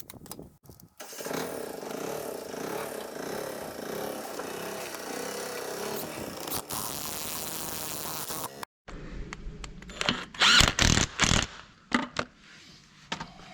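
A power tool running steadily for about seven seconds, its pitch wavering slightly, then stopping abruptly; after a short gap come a few sharp metal knocks.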